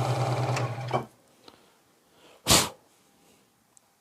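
Ryobi scroll saw running with a steady, rapidly pulsing hum, switched off and cutting out abruptly about a second in at the end of a cut in MDF. A short, loud hiss follows about a second later.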